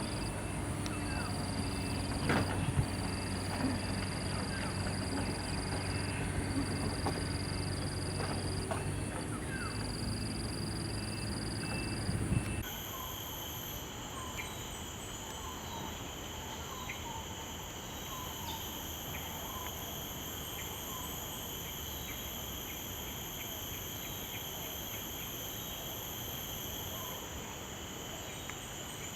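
Outdoor nature ambience: a steady high insect drone with scattered short bird calls. The background changes abruptly about twelve seconds in to a different set of steady insect tones.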